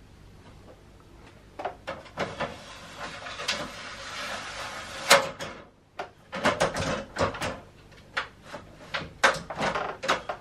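Aluminium loft ladder being struggled with by hand: a sliding scrape for a few seconds, then a run of sharp metallic clicks and clanks.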